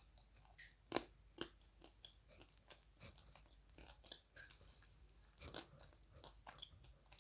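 Faint, close crunching as dry lumps of edible earth are bitten and chewed. Sharp bites come about a second in, again half a second later and around five and a half seconds, with quieter crackling chews in between.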